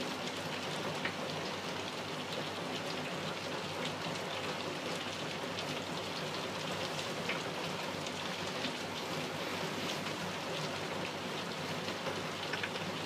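Steady rain-like hiss with scattered faint crackles.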